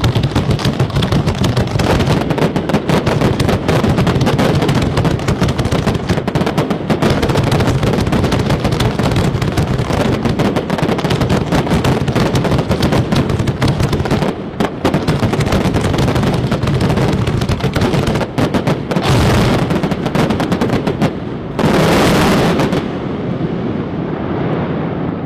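Daytime smoke fireworks going off in a dense, continuous rapid-fire crackle of bangs. About three-quarters of the way through come two louder rushing hisses, a couple of seconds apart.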